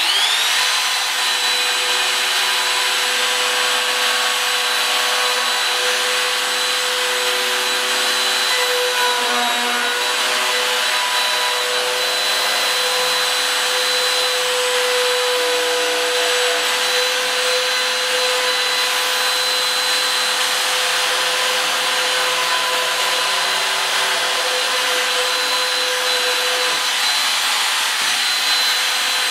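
Small trim router with a half-inch straight bit spinning up with a rising whine, then running steadily at full speed. It is moved freehand over the board, milling high spots of cured fiberglass-filled epoxy back flush with the particle board.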